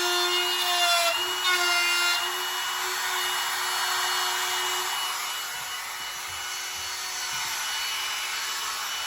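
Handheld router running and cutting a shallow hinge mortise into a wooden door, a steady high motor whine over the hiss of the bit chewing wood. The motor is switched off at the very end and its pitch starts to fall.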